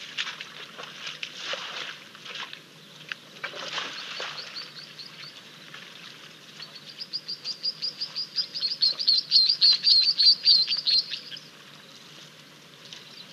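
A songbird singing a fast run of high, repeated notes, several a second, that grows louder and then stops about eleven seconds in. Before it there are a few brief bursts of rustling noise.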